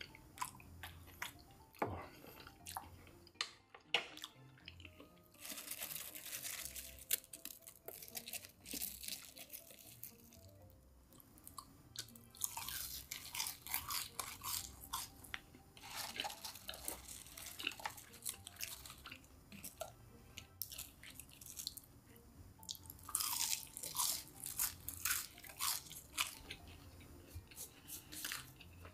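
Close-up chewing and crunching of KFC crispy fried chicken, in several bouts of loud, dense crackly bites with softer wet chewing between them.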